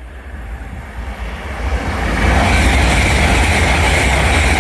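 LNER Class 801 Azuma electric train passing at high speed. The rushing noise of wheels and air builds over the first two seconds, then stays loud and steady.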